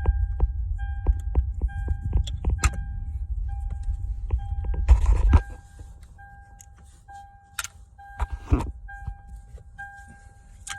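2007 Toyota 4Runner's warning chime beeping over and over in a steady rhythm, with the key switched on, over scattered clicks and knocks of a screwdriver and dash trim being handled. A low rumble stops suddenly about halfway through.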